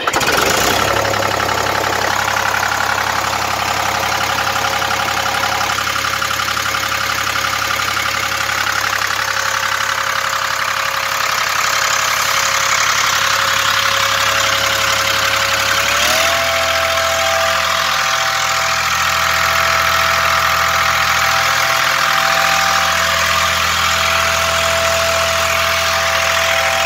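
Hatz 3M41 three-cylinder air-cooled diesel engine fires up at once on its first start and runs steadily. About sixteen seconds in its speed rises slightly and holds there. It is running smoothly, which the owner takes as everything working well.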